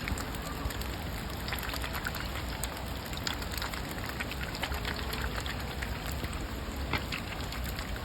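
Steady rain falling, with many separate drop hits ticking through it.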